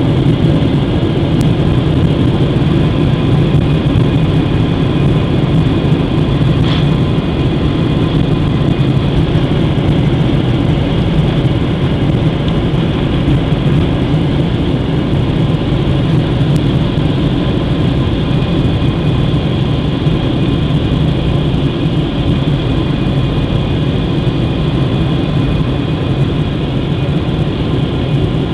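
Airliner's jet engines running at taxi power, heard inside the passenger cabin: a steady low rumble with a thin high whine over it.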